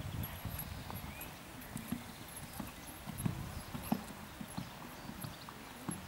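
Hoofbeats of a Hanoverian gelding moving over a sand dressage arena: a steady run of low thuds, a few a second.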